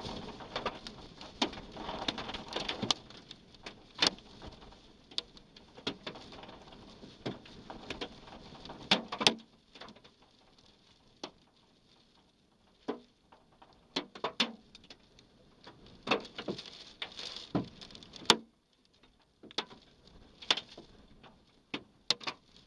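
Storm wind and rain on a vehicle, with many irregular sharp knocks of objects striking it. The rushing is heavier for the first nine seconds, ending in a cluster of loud knocks, then eases to scattered knocks.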